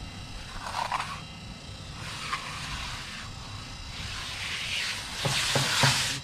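Steel hand trowel scraping and smoothing the top of a wet sand-and-Portland-cement mowstrip curb, a rasping hiss that grows louder toward the end, with a few light knocks near the end. The surface has been wetted with a little water to get a smooth finish.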